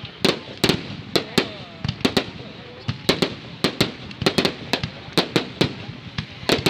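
Fireworks display: a rapid, irregular run of sharp bangs and cracks from bursting shells, several a second.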